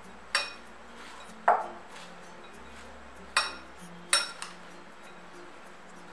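Steel spoon clinking against a glass mixing bowl four times while stirring shredded cabbage filling, each clink sharp with a short ring.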